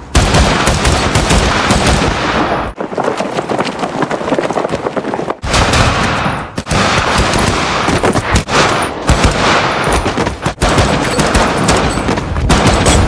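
Film shootout audio: rapid rifle fire, shots coming thick and fast in long runs with a few brief breaks between bursts.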